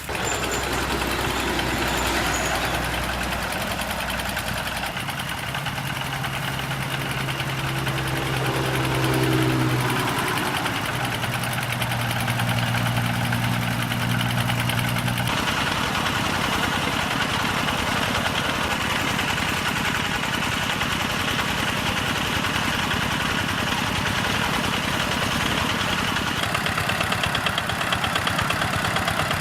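Engines driving irrigation water pumps running steadily. The sound changes abruptly a few times, about five, fifteen and twenty-six seconds in.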